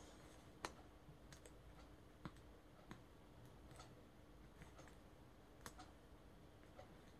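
Faint, scattered clicks and crackles of colored paper being creased and pressed flat by hand while folding an origami tree, about a dozen in all, the sharpest about half a second in. A faint steady hum runs underneath.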